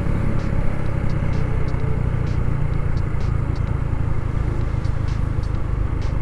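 Motorcycle riding at a steady speed, heard from the rider's own bike: a steady engine and road rumble with no changes of pace.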